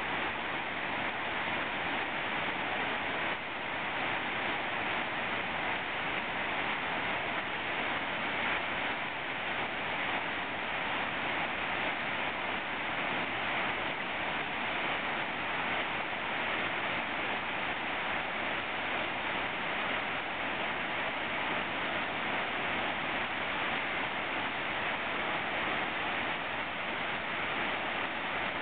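Niagara River white water rushing over the low cascade of Second Sister Falls: a steady, unbroken rush of water.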